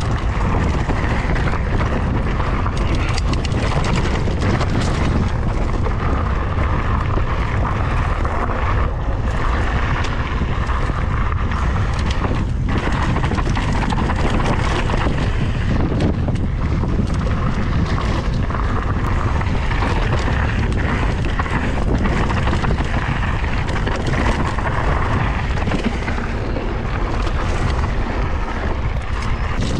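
Wind rushing over the microphone and mountain bike tyres rumbling on a dry dirt trail, with many small knocks and rattles from the bike as it rides over bumps.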